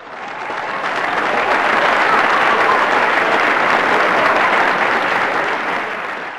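A crowd applauding, a dense patter of clapping that swells in over the first couple of seconds, holds, then fades away near the end.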